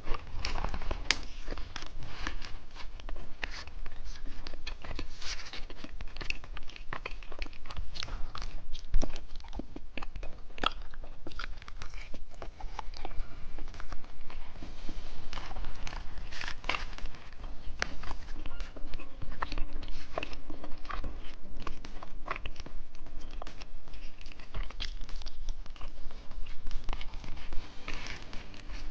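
Close-miked biting and chewing of milk-flavoured edible rice-paper candy: irregular crunches and crackles throughout.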